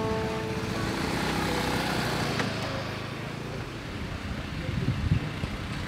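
Small automatic step-through scooter engine running as it pulls up and stops, a little quieter about three seconds in, with a few thumps near the end. A few notes of music fade out at the very start.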